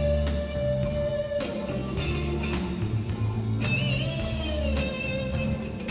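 Background rock music: a sustained guitar lead line that bends up in pitch about four seconds in, over a stepping bass line and a steady beat.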